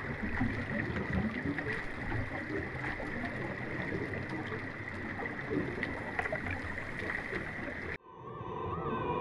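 Underwater recording around a diver working on a ship's hull: a dense low rumbling wash with a constant high whine and a few faint clicks. About eight seconds in it cuts off abruptly and music begins.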